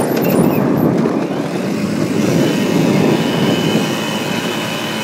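Quad (ATV) running along a dirt trail, heard as a loud, rough rumbling noise over the hand-held phone's microphone. It eases off slightly over the last couple of seconds.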